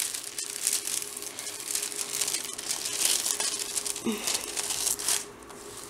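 Plastic crinkling and rustling, irregular and continuous, as a diamond painting canvas with its clear plastic cover film is handled by hand.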